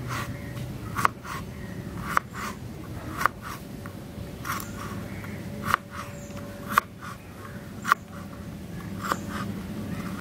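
Chef's knife dicing a carrot on a cutting board, the blade striking the board with a sharp knock about once a second.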